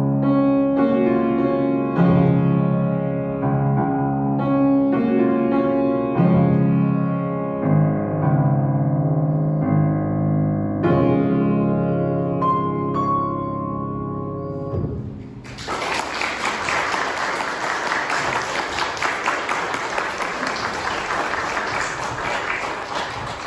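Piano playing slow, sustained chords, which end about fifteen seconds in. A congregation then applauds for about eight seconds.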